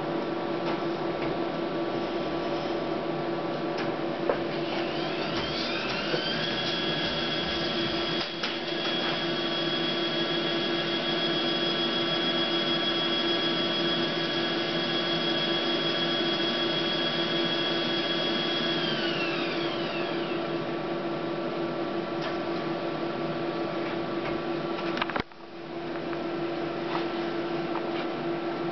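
Memjet SpeedStar3000 label printer running its pre-print maintenance cycle, the printhead wipe: a steady motor hum throughout, with a whining motor that rises in pitch about six seconds in, holds, and winds down around twenty seconds. About twenty-five seconds in the machine noise drops out for a moment and then resumes.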